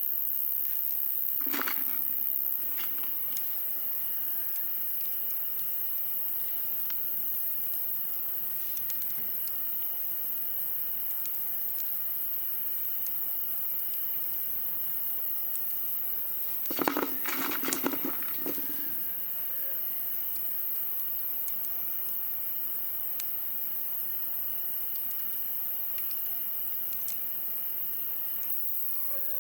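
Wood campfire burning, with scattered small crackles and pops over a steady hiss. About a second and a half in there is a brief knock, and at about 17 seconds a louder second-long bout of knocking and rustling, like wood being handled on or by the fire.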